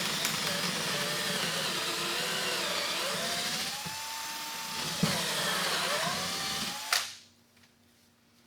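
Power drill boring a pilot hole through the wall into a wooden stud, its motor pitch sagging and picking up again as the bit works. It stops about seven seconds in.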